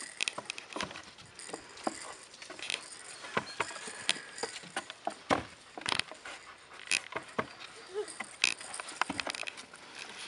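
Czechoslovakian wolfdog puppies playing: irregular light clicks, taps and rattles from paws on wood and dry ground litter and from a hanging plastic toy, with a few brief squeaks.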